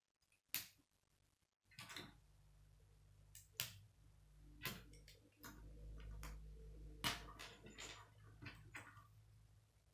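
Plastic K'nex rods and connectors clicking as they are snapped together and handled: a string of faint, sharp clicks a second or so apart. A low steady hum sits under them from about two seconds in until near the end.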